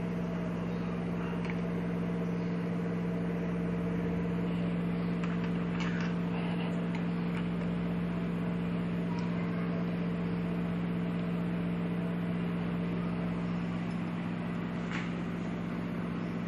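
A steady, even hum with a faint hiss, like an appliance or fan motor running, with a few faint light clicks.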